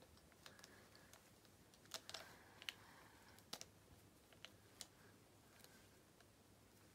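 Quiet handling sounds from a plastic Blythe doll and its wrapping: a dozen or so faint, scattered small clicks and taps over low room hiss.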